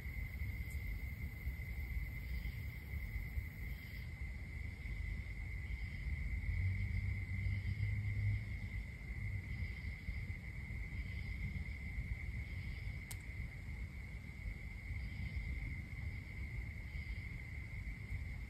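Crickets trilling at night: one steady, unbroken trill, with fainter chirps repeating about once a second, over a low rumble.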